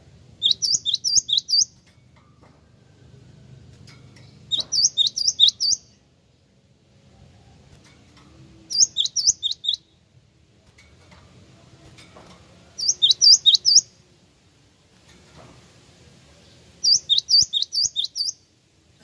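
Cinereous tit (gelatik wingko) singing in five short bursts of rapid, repeated high notes. Each burst lasts about a second, with a pause of a few seconds between them.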